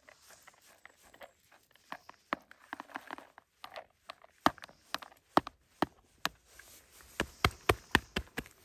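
Handheld berry scoop raked through wild blueberry bushes: a run of sharp, irregular clicks and snaps, coming thicker and louder in the second half.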